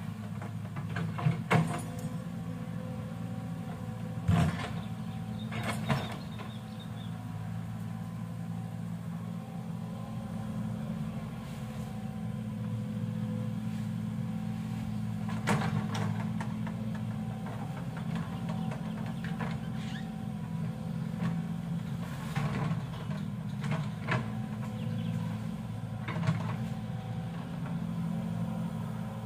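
Excavator's diesel engine running steadily, with a few short knocks and clanks from the machine at irregular intervals.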